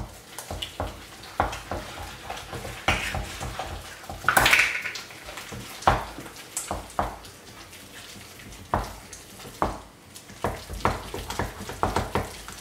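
Wooden spoon beating choux pastry dough in a glass bowl as an egg is worked in: irregular knocks of the spoon against the bowl and wet slapping of the sticky dough, with a louder scrape about four and a half seconds in.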